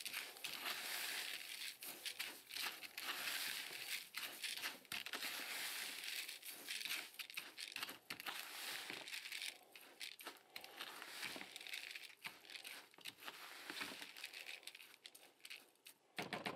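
A spoon stirring a damp mix of rolled oats, panko breadcrumbs and creamed corn in a plastic bucket: continuous crunchy rustling and scraping with many small clicks. It thins out and turns patchier about ten seconds in.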